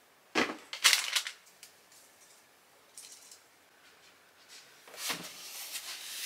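Items being handled and set down: a few short knocks and rustles, sharpest about a second in, with more rustling near the end.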